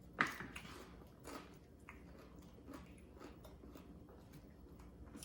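Mouth chewing and crunching nachos: one sharp crunch just after the start, then faint, irregular crunches.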